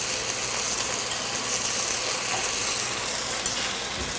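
Chopped onions frying in hot oil in a pan, a steady sizzle, as they cook toward golden brown.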